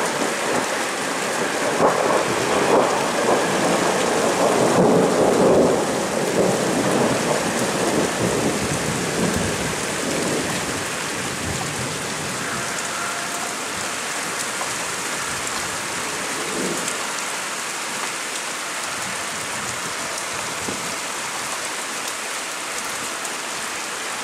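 Heavy rain falling steadily, with a long roll of thunder that swells in the first seconds, is loudest around four to six seconds in, and dies away by about ten seconds in, leaving the even hiss of the rain.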